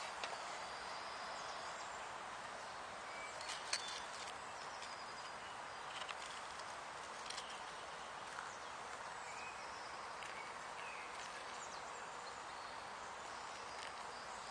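Hot water poured in a steady thin stream from a tin-can cooking pot into a wooden kuksa cup, a soft even trickle, with a few faint clicks.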